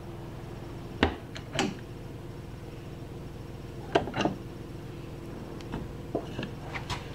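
Wooden record-storage cabinet door of a Victor Victrola VV-405 being handled and swung open: a few sharp clicks and knocks, in pairs about a second in and about four seconds in, with lighter taps near the end, over a faint steady hum.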